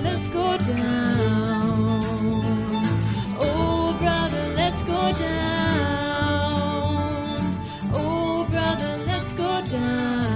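Acoustic band music in a folk and bluegrass style: a sustained, wavering melody over plucked guitar and bass, with a steady rhythmic tick driving it.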